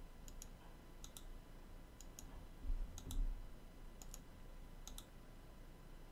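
Computer mouse button clicks: short sharp ticks in close pairs, about one pair a second. There is a soft low bump about halfway through.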